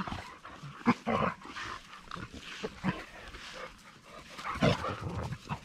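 A pack of dogs, pit bulls and a wolfdog among them, play-fighting and making short dog noises in quick, irregular succession, loudest about a second in and again near the end.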